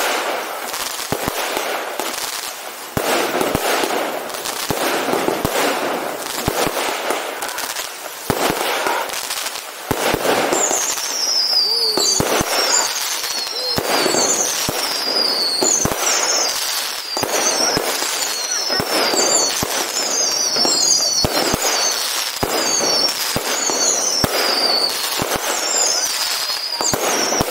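Aerial fireworks display: a rapid run of shell bursts and crackling, with a high falling whistle that repeats about once a second from about ten seconds in.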